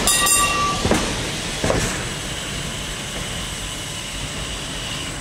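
Electric tram running close by on its track, its wheels knocking three times in quick succession over rail joints in the first two seconds, with a brief high metallic ring of steel on steel at the very start, then a steady rolling rumble.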